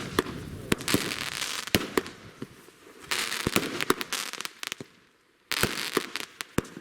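Consumer firework cake (multi-shot battery) firing: sharp bangs, each trailed by a wash of crackling, in three volleys with a brief lull about five seconds in.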